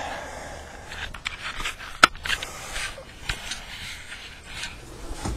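Scrapes, rustles and clicks from someone shifting about on his back under a pickup truck with a phone in hand, with one sharp click about two seconds in.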